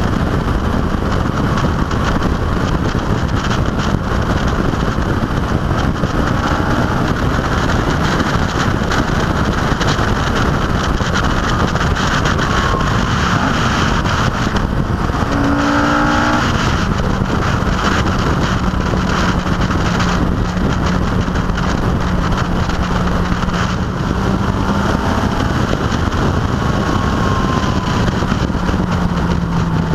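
Car driving at speed with its engine running under a heavy, steady wash of wind and road noise, as heard from a camera mounted on the outside of the car. The engine note shifts briefly around the middle, then holds steady over the last dozen seconds.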